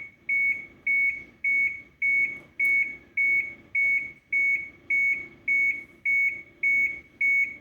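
Dashboard warning beeper of a 1996 Blue Bird diesel bus sounding with the key on before cranking: short high-pitched beeps at one steady pitch, about two a second.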